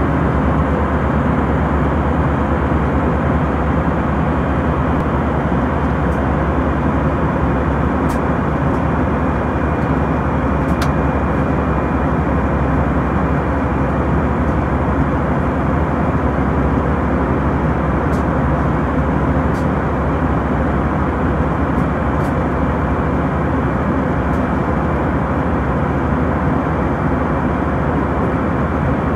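Airliner cabin noise in flight: the steady roar of engines and airflow over the fuselage, with a faint steady whine above it.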